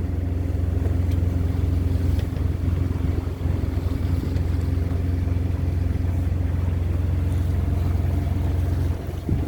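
A boat's engine runs steadily at constant speed, a low, even drone.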